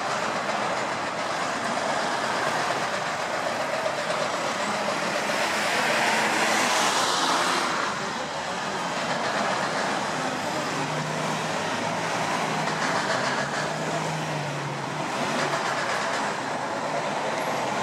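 Steady city traffic: trucks and cars running at a busy intersection, swelling a little about six seconds in and easing off about eight seconds in, with a low engine hum later on.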